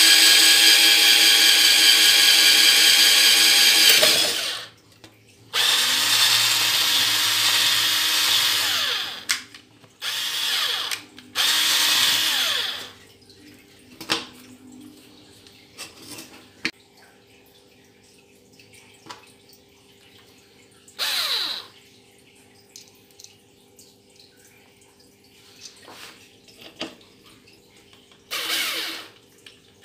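Black+Decker BDCD8 7.2V cordless drill driver, a single-speed tool, running at full speed to drill holes through a strip of wood. It runs in on-off bursts with a steady motor whine. The longest burst, about four seconds, comes at the start, with shorter ones after it, and the gaps grow longer and quieter through the second half.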